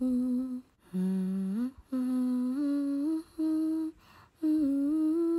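A person humming a slow, simple melody, holding each note and moving between them in steps, with short pauses for breath between phrases.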